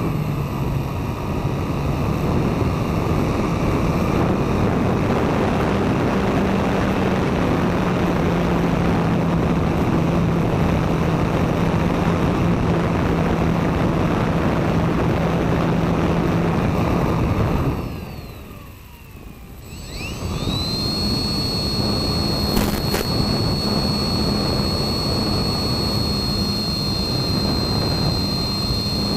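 Onboard sound of a radio-controlled FPV model aircraft in flight: a steady motor and propeller drone under a broad rush of wind noise. About eighteen seconds in the noise drops away for roughly two seconds, then returns with a high whine rising to a steady pitch.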